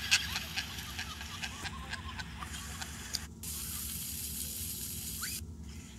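Shallow surf splashing over a small child, with a sharp splash right at the start. About three seconds in, this gives way to the steady hiss of splash-pad fountain jets spraying water, which cuts off abruptly near the end.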